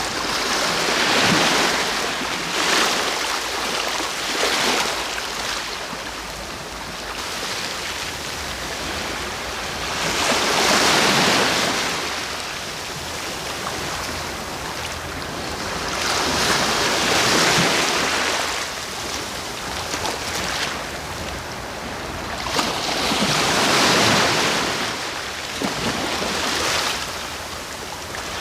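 Sea waves breaking and washing up the shore: a steady wash of surf that swells to a loud hiss and falls back again, four waves in turn.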